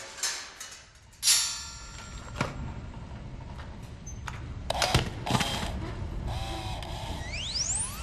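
A string of separate film sound effects: a sharp hit with ringing tones about a second in, several more knocks, and a quick rising whistle near the end.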